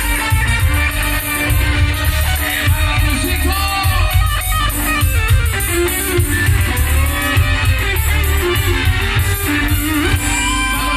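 A live grupero band playing through a concert sound system: electric guitar over a drum kit's steady beat, with the full band of horns and percussion behind.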